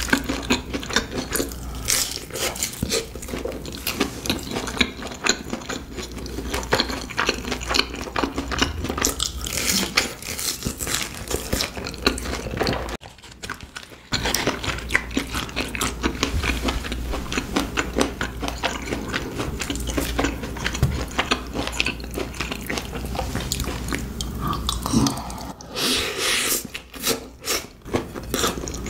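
Close-miked chewing and biting of food: dense small clicks of a mouth eating fried snacks and saucy rice cakes, with a brief quieter gap about 13 seconds in.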